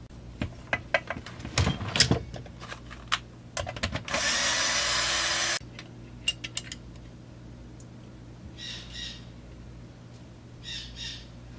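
Small metal parts and tools clicking and knocking, then a power drill/driver running steadily for about a second and a half and stopping abruptly, followed by a few more light clicks.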